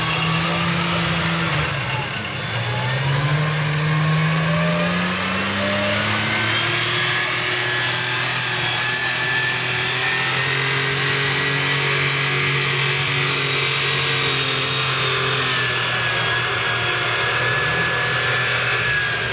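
Mercedes-Benz Unimog trial truck's engine working under load as it climbs a steep grassy slope. The revs rise about two seconds in, then hold steady and high.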